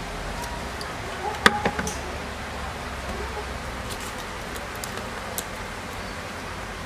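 Plastic and metal laptop parts being handled during disassembly: a few sharp clicks about a second and a half in, the first the loudest, then a few fainter ticks, over a steady low background hum.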